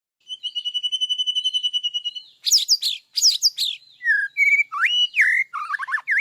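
A bird singing: a rapid high trill of about ten notes a second, then a run of varied whistled notes sliding up and down in pitch.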